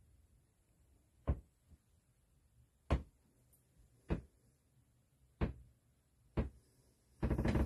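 A series of five sharp knocks, each about a second apart, then a short dense clatter near the end.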